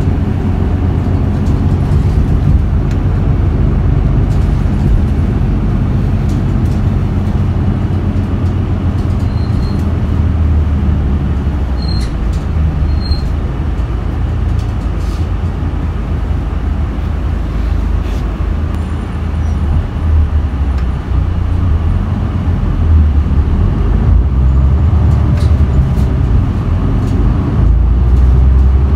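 Isuzu Erga city bus's diesel engine running under way, a steady low rumble heard from inside the passenger cabin, growing louder over the last several seconds.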